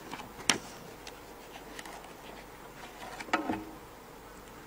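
Quiet room tone of a large hall with a faint steady hum, a sharp click about half a second in, and a brief faint voice a little after three seconds.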